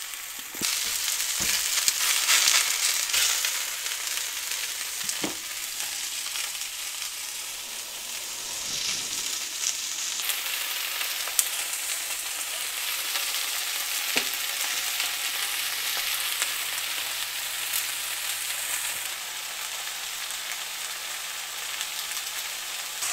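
Cubes of New York strip steak searing in hot olive oil in a preheated cast iron skillet: a steady sizzle, a little louder about two seconds in, with a few faint clicks.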